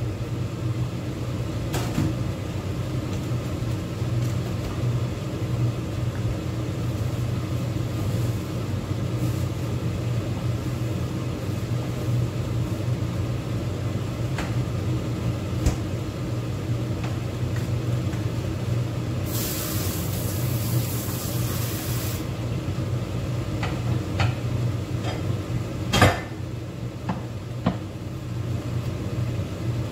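Steady low kitchen hum from a pot of coconut-milk curry simmering on the hob, with scattered light clicks. A hiss lasts about three seconds two-thirds of the way through, and there is a sharp knock a few seconds before the end.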